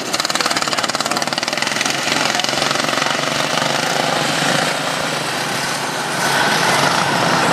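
Small engines of several racing lawn tractors running together under throttle, a fast, even pulsing, growing louder about six seconds in as the tractors come closer.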